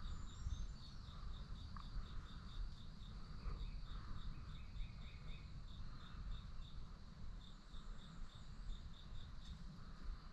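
Insect chirping steadily, a high chirp about four times a second, over a low steady rumble, with a few faint bird chirps here and there.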